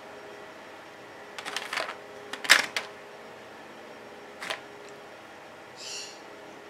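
Light clicks and taps of small polymer clay tiles being handled and set down on a craft frame, a few in a quick cluster with the sharpest about two and a half seconds in and another single tap a couple of seconds later. A brief soft scrape near the end.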